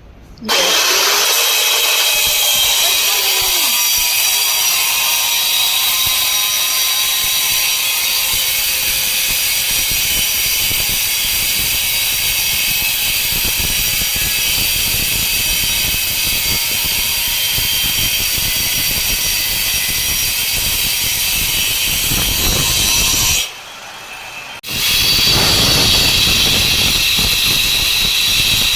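Handheld electric power tool running steadily with a high whine for about 23 seconds, stopping for about a second, then running again.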